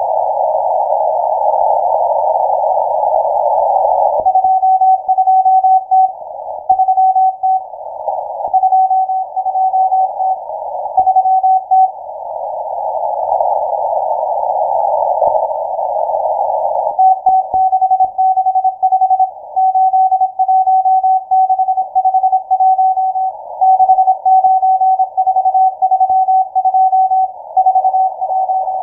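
Morse code from the M12 numbers station on 12187 kHz, heard through a web-based shortwave receiver: a single steady tone keyed on and off in dots and dashes over a narrow band of static hiss. The code starts about four seconds in, stops for several seconds of hiss alone around the middle, then starts again.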